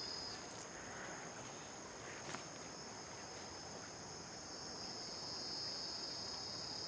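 Steady high-pitched insect chorus, one layer of it dropping out early and returning about five seconds in, with a single sharp click a little over two seconds in.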